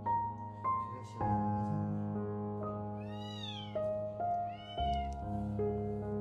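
A kitten meowing twice over background music, each meow rising then falling in pitch; the first, about halfway through, is the longer.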